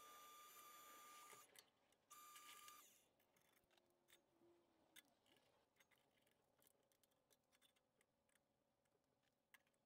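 Near silence. A faint steady high whine stops about a second and a half in, comes back briefly, and then gives way to faint scattered clicks.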